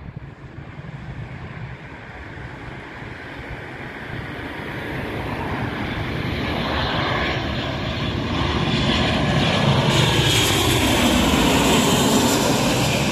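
Boeing 737 airliner's jet engines on landing approach, growing steadily louder as it comes in low overhead, with a falling pitch near the end as it passes.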